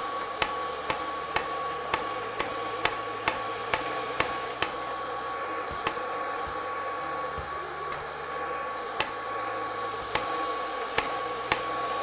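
Hair dryer running steadily with a high whine, blowing air through a plastic-pipe ping pong ball cannon. Sharp clicks of ping pong balls being sucked up the tube and shot out come about two a second for the first few seconds, then more sparsely.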